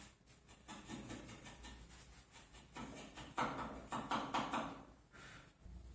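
A hand tool shaving a small hardwood turnbutton by hand: a series of short scraping cuts in bursts, the loudest a quick run of strokes a little past the middle, with one more stroke near the end.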